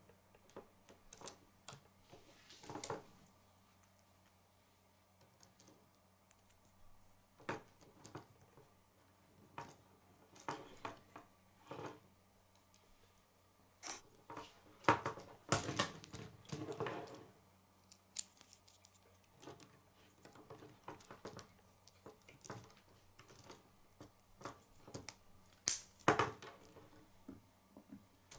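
K'nex plastic pieces clicking, snapping and rattling as a wheel and axle are fitted onto a model chassis: scattered sharp clicks, a busier run of handling noise in the middle and a loud snap near the end.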